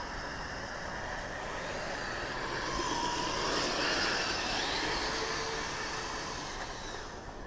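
Kyosho Blizzard radio-controlled snowcat's brushed electric motor and tracks running through snow. The sound grows louder toward the middle and eases off near the end, with a faint whine that rises and falls in pitch.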